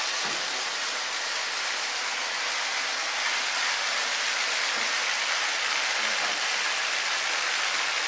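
Water released from a row of valves in a home-built digital waterfall, falling in many thin streams and splashing onto a tiled floor: an even, steady hiss like heavy rain.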